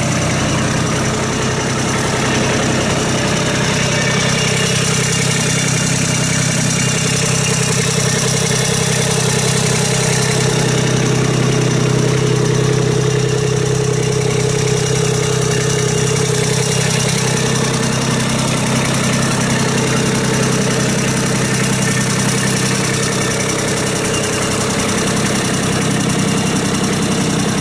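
Kubota B26 tractor's diesel engine idling steadily, with no change in engine speed.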